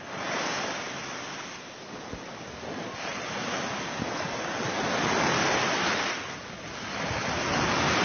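Small Mediterranean waves washing up onto a sandy beach and drawing back, the surf swelling and easing in slow surges, loudest about five seconds in and again near the end.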